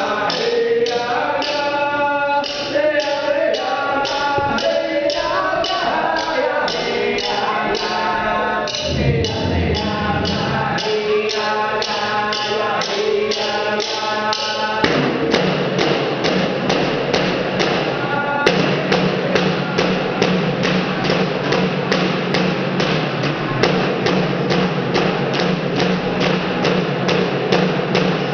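Frame hand drum struck in a steady beat, about three strokes a second, with voices singing a drum song over it; the singing grows fuller about halfway through.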